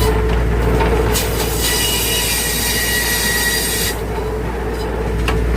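Circular sawmill running steadily, its blade cutting through a spruce log with a high-pitched squealing whine from about a second in that stops near the middle, leaving the machine running at idle.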